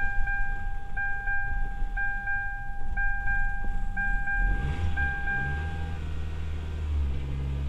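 A car's warning chime dings in pairs about once a second while the 2008 Kia Optima is started; about four and a half seconds in the engine cranks and catches, the chime stops soon after, and the engine settles into a steady low idle. It stutters a little on starting, part of a rough idle that goes with its mass airflow sensor trouble codes (P0101, P0103).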